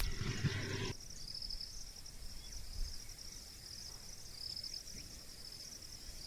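Insects chirring in a steady high-pitched pulsing trill, with a low rumbling noise in the first second that stops abruptly.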